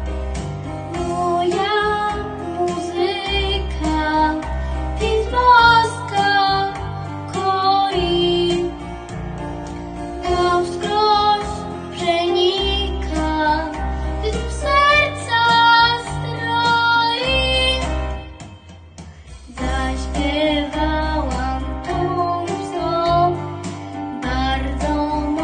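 A young girl singing a song in Polish over instrumental accompaniment with a pulsing bass line; the music briefly drops almost to a pause about three quarters of the way through, then resumes.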